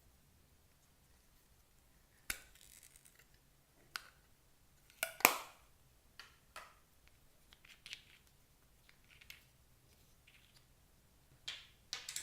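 Scattered sharp clicks and taps with a few short scraping rustles, about a dozen in all, the loudest about five seconds in and a quick cluster near the end, from small hard items being handled.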